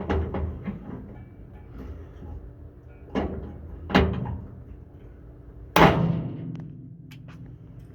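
Hand pop-rivet gun being worked on the truck cab's sheet-metal pillar, setting the shoulder-belt mount plates. It gives several sharp metallic clacks, and the loudest, about six seconds in, rings on briefly.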